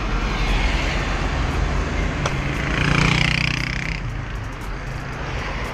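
Road traffic noise with a motor vehicle passing close by, swelling to its loudest about halfway through and then fading, over a steady low rumble.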